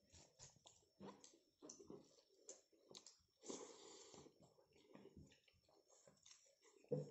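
Faint sounds of a person eating rice and boiled meat by hand: soft wet clicks and squishes of fingers working the food on the plate, and mouth chewing and smacking. A brief louder noisy stretch comes about halfway, and a short sharp sound near the end is the loudest.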